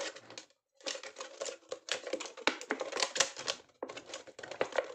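Thin plastic drink bottle, cut into strips, crackling and crinkling as it is handled and flexed: rapid, irregular sharp clicks with a short pause about half a second in.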